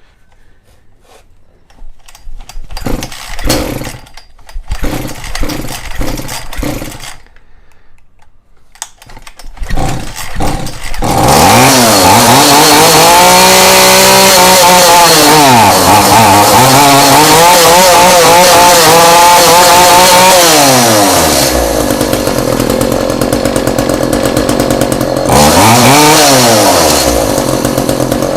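Echo CS400 two-stroke chainsaw being pull-started, several pulls on the starter cord before it catches, about ten seconds in. It then revs up and down a few times, settles to idle, and is blipped once more near the end. It runs on fresh fuel after priming: the saw only needed fresh gas.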